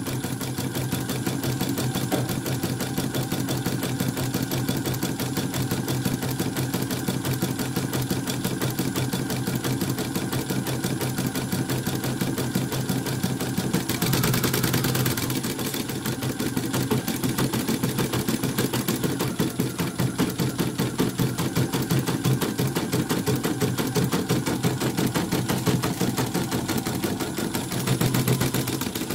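Elnoss embroidery machine stitching a test design: its needle bar and rotary hook clatter in a rapid, even rhythm, with a brief louder swell about halfway through. This is the test run after repair of a bobbin case that kept jumping, with a newly fitted rotary hook.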